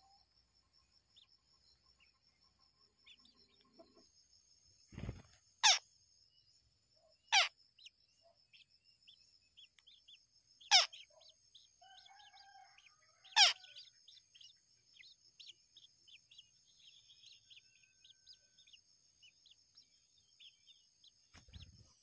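Four loud bird calls, each a quick whistle sweeping steeply down in pitch, two to three seconds apart. Under them a steady high insect buzz runs on, with faint scattered chirps and a soft low thump just before the first call.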